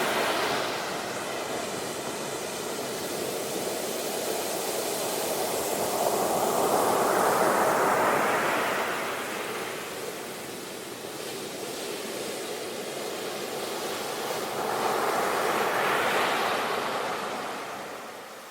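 Ocean waves breaking and washing up the shore, the surf swelling twice about eight seconds apart and easing off toward the end.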